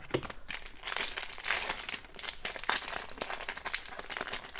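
Foil trading-card pack wrapper crinkling in the hands, in quick irregular flurries that grow louder about a second in.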